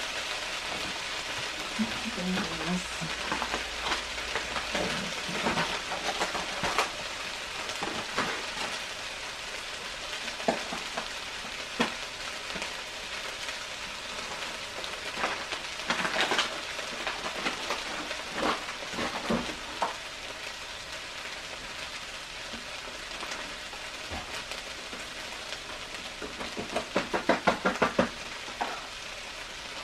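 Diced ham and potatoes frying in a large pot: a steady sizzle with scattered pops and crackles, and a quick run of sharper pops near the end.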